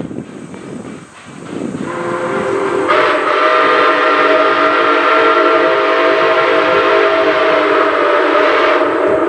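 Nickel Plate Road Berkshire steam locomotive No. 765 blowing its chime steam whistle in one long blast, several notes sounding together. The whistle comes in about two seconds in, grows fuller and louder a second later, and is still held at the end.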